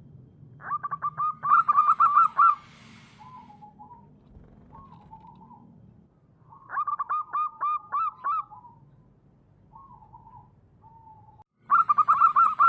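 Zebra dove (perkutut) cooing: three loud phrases of quick, pulsing notes, each about two seconds long, with softer short coos between them.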